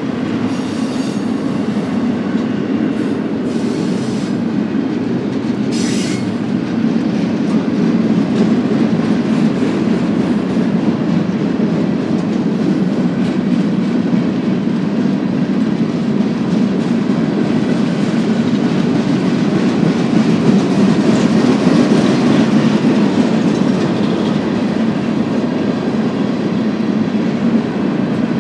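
BNSF intermodal freight train rolling steadily past, a continuous rumble of railcar wheels with clicking over the rail joints. There are a few brief wheel squeals in the first six seconds.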